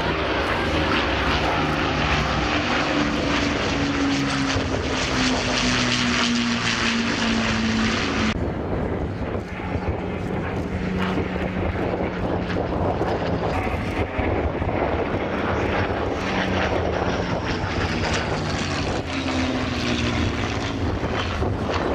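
Propeller engines of an Avro Lancaster bomber and a Spitfire flying past together, their pitch falling as they pass. The sound changes abruptly about eight seconds in to a lone Spitfire's piston engine running through its display, its pitch dropping again near the end.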